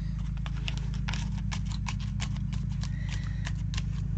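Quick light clicks and taps, several a second, from a disc-bound paper planner being handled on a table, over a steady low hum.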